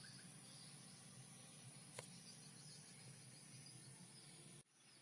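Near silence: faint outdoor ambience, a steady soft hiss with a thin high-pitched tone. A single sharp click comes about two seconds in, and the sound drops abruptly near the end.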